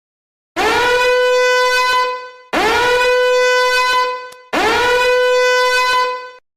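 A horn-like sound effect blown three times in a row, each blast about two seconds long, sliding quickly up to a steady note and holding it before cutting off.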